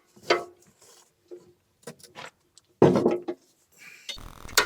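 Clicks and clanks of a new battery being fitted and its terminal clamps tightened in a backhoe, with a louder knock about three seconds in and a brief rushing noise starting near the end.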